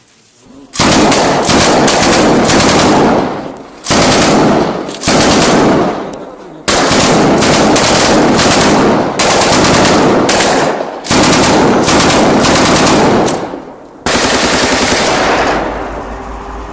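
Automatic gunfire: a series of long bursts of rapid fire, each lasting one to four seconds with short breaks between, starting about a second in.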